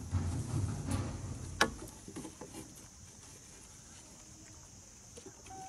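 Scuffling and low thumps of young macaques clambering over wooden boards, with one sharp knock about a second and a half in. After about two seconds it goes quieter, leaving a few faint taps over a steady high hiss.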